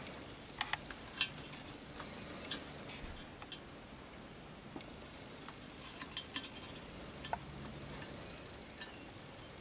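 Scattered light clicks and metallic ticks of an endoscope probe and its cable being worked into the metal tube of a pump-up air rifle, knocking lightly against the metal.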